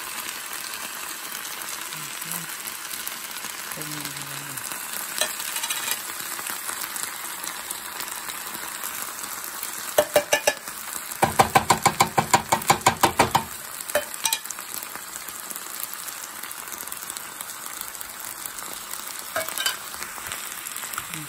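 Canned tuna and diced bell peppers sizzling in oil in a frying pan. About ten seconds in comes a burst of rapid tapping, roughly six taps a second for a few seconds, with a few single clicks elsewhere.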